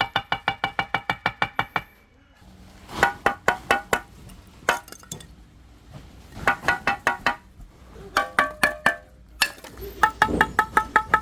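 Pieces of khaya hardwood lump charcoal knocked together in quick runs of clinks, about six to eight strokes a second, each stroke ringing with a clear tone. The bright, ringing click is a sign of dense, well-carbonized charcoal.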